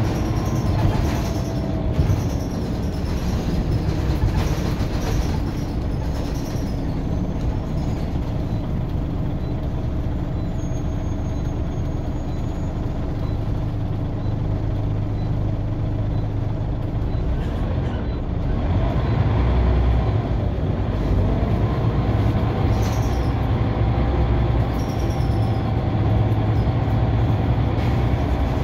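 A Scania OmniCity single-deck bus heard from inside the passenger saloon on the move: a steady diesel drone with a transmission whine. The sound eases for a moment about two-thirds of the way through, then a whine climbs in pitch as the bus accelerates again.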